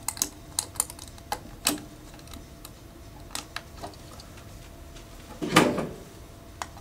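Small irregular clicks and taps of fingers and copper wire working the terminal screws of a plastic lampholder, with a brief louder scrape about five and a half seconds in.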